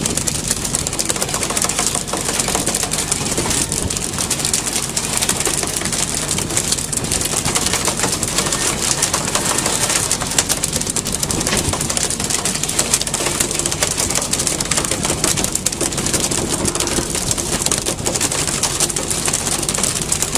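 A boat engine running steadily, a low hum under constant crackling noise.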